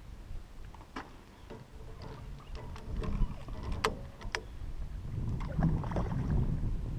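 Small hooked longnose gar splashing at the water's surface as it is reeled toward the boat. There are a few sharp clicks from the rod and reel, one about a second in and two a little past the middle.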